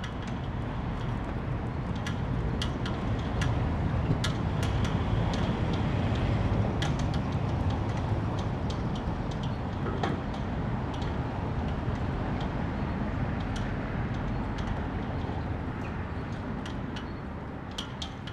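A road vehicle passing, its low rumble swelling over the first several seconds and slowly fading, with scattered sharp clicks over it.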